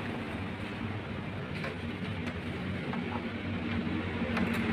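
Small motorcycle engine running steadily at low revs, getting slightly louder near the end.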